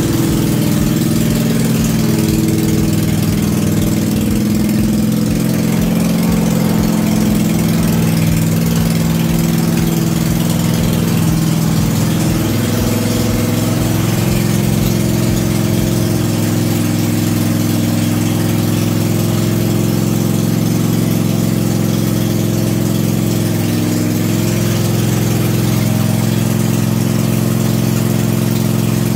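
Cub Cadet RZT-50 zero-turn mower's engine running steadily; its note shifts slightly about twelve seconds in.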